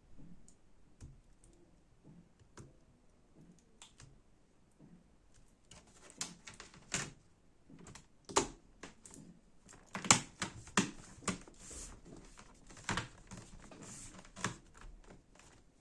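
Irregular light clicks and taps of small plastic and metal laptop parts being handled and pressed into place inside an opened laptop, sparse at first and coming thicker from about six seconds in.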